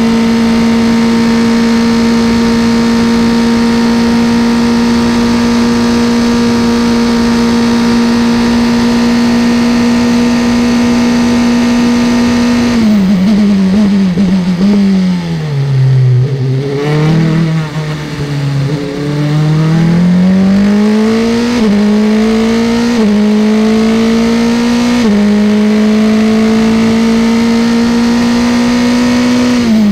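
Formula 3 single-seater's engine heard from onboard, held flat out at a steady high pitch, then from about 13 seconds in falling in quick steps as the car brakes and downshifts for a slow corner. It then climbs again through three upshifts, holds high, and drops sharply once more at the very end under braking.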